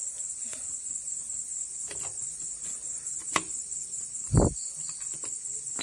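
Steady high chirring of crickets, with a few sharp clicks from metal engine parts being handled and a dull low thump a little past four seconds in, the loudest sound.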